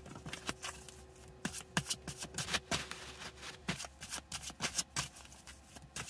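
A deck of bird oracle cards being shuffled by hand: a quick, irregular run of soft card flicks and snaps.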